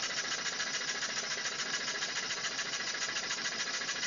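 Homemade steam engine running steadily with a fast, even mechanical beat as it drives a generator.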